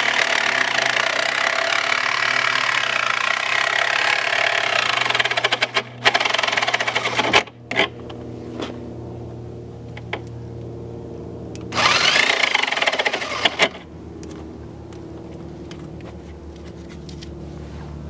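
Jigsaw cutting the edge of the lock opening in an RV door to enlarge it, in two bouts: a long loud cut of about six seconds, then a shorter one about twelve seconds in. Between the cuts the saw runs more quietly, with a few clicks.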